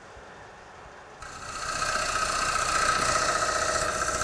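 Swept-back-grind bowl gouge taking a light cut on a spinning Bradford pear bowl on a wood lathe: a steady scraping rush of cutting with a faint steady tone in it, starting about a second in. It is a light cut that throws shavings about an eighth of an inch wide.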